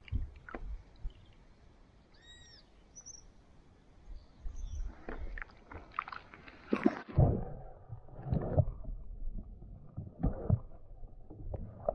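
Water splashing and sloshing against a handheld camera as it is dipped into shallow water, with knocks and thumps on the camera. About seven seconds in the sound turns muffled, leaving low rumbles and dull thumps as the camera is underwater.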